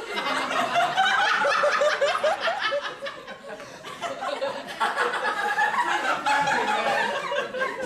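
Audience laughing, many voices chuckling and snickering at once; the laughter eases a little about three seconds in and picks up again.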